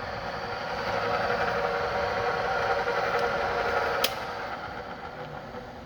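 Solberga 24-inch drill press, model SENR7, running in its 522 rpm spindle gear: a steady mechanical whine of several tones that builds over the first second. About four seconds in there is a click, and the sound fades away gradually as the machine winds down.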